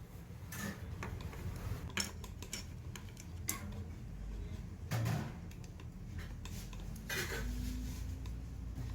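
Dishes and metal utensils clinking and clattering in scattered knocks, over a steady low hum.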